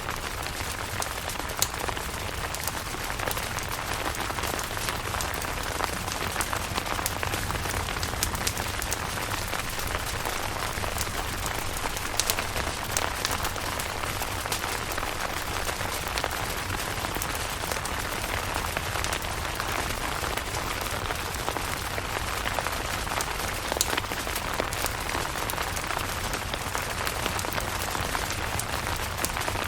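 Steady rain falling on a camping tent, with many individual drops ticking sharply throughout.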